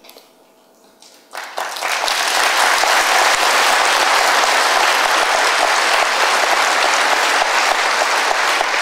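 Audience applause: after a brief hush, clapping breaks out about a second and a half in, builds quickly and goes on steadily.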